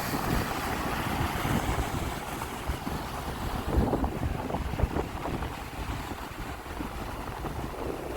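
Sea waves washing onto the shore, with wind buffeting the microphone as a gusty low rumble.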